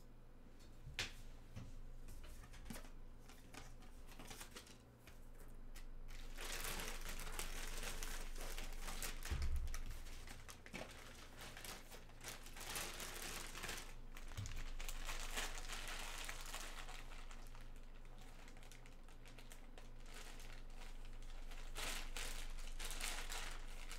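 Plastic bag crinkling as it is handled, with a few light clicks at first and a dull thump about nine and a half seconds in.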